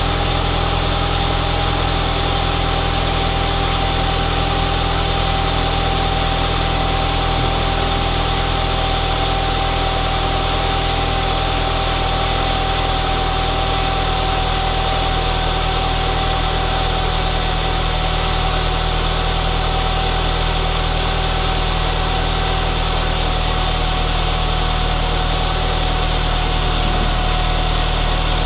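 Audi TT 1.8T (BAM) turbocharged four-cylinder engine idling steadily, with a steady whine running through it. The alternator is charging at 14 volts on its newly replaced voltage regulator.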